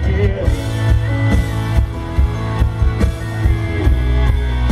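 Live country band playing between sung lines: electric guitars ringing over bass and drums, with a sung "yeah" at the start.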